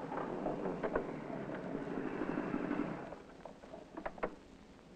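Police motorcycle engines running as the bikes pull up and slow beside a bicycle, fading out after about three seconds. A few light clicks follow near the end.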